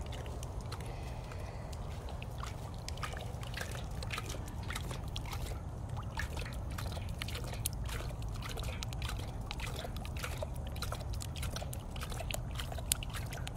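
A lion lapping water from a tub, with quick irregular splashes several times a second, over a steady low rumble.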